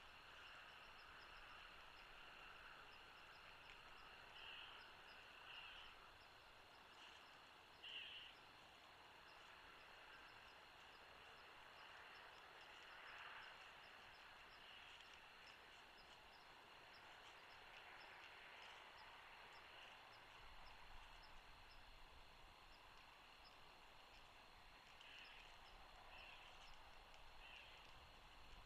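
Faint, distant bald eagle calls: a few short, high chirps scattered through, over a steady hiss of near silence.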